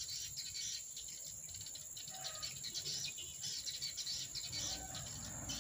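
Faint outdoor ambience of wild birds and insects: a steady high insect drone with scattered short bird chirps throughout.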